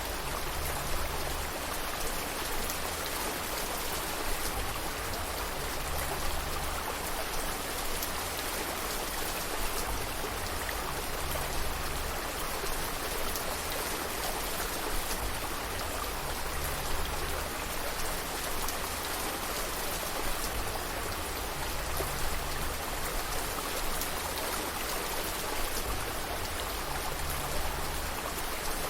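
Steady rain falling, a dense even hiss of raindrops with many small drip ticks, over a low rumble that swells and fades.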